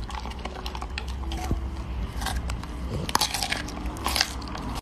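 Golden retriever biting and chewing a head of broccoli: a run of crisp crunches, louder and more frequent from about halfway through.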